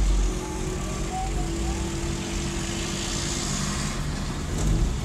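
Engine and road noise heard from inside a moving car, with a heavy truck passing close by whose low rumble fades about a third of a second in.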